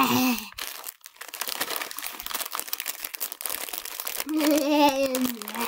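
Crinkly rustling as stuffed plush toys are handled and moved, running for about three seconds; a child's voice is heard briefly at the start and again near the end.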